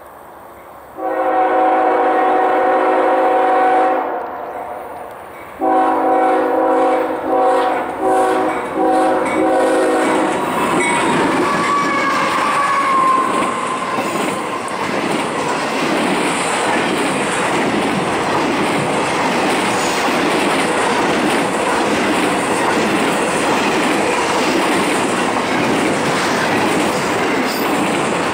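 CSX freight train's multi-chime air horn sounds one long blast, then after a short pause a string of shorter blasts. Then its two GE diesel locomotives and a long line of double-stack intermodal cars pass close by, with steady wheel clatter on the rails.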